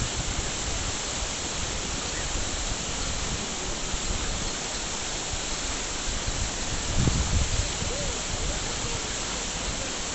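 Steady rushing noise, with a short low rumble about seven seconds in.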